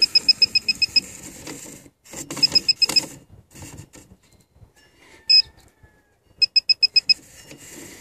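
Handheld circuit breaker finder receiver beeping rapidly in high-pitched pulses, in several short spells, as it is slid along the breakers: it beeps over the breakers that pick up the transmitter's signal from the outlet's circuit. Light clicks and rubbing of the receiver on the breaker toggles come between the spells.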